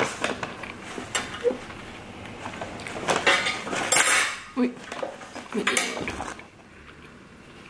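Cutlery and dishware being handled: a run of clinks, clicks and scrapes, loudest about three to four seconds in and again near six seconds.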